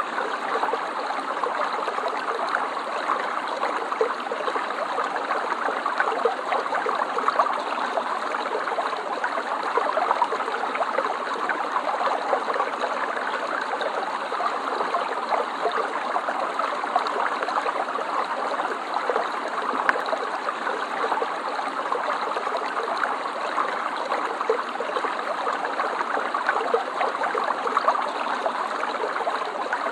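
Stream water running and gurgling steadily over stones, a continuous even rush with small splashy flickers.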